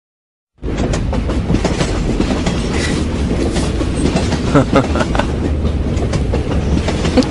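Subway train running, heard from inside the car: a steady rumble with scattered clicks of the wheels over the rails. It starts about half a second in.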